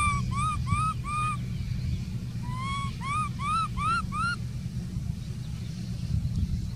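Baby macaque crying in two bouts of high, whining calls: each bout opens with a rising cry and runs into short arched cries, four in the first bout and five in the second, around a second in and a little past the middle. A steady low rumble runs underneath.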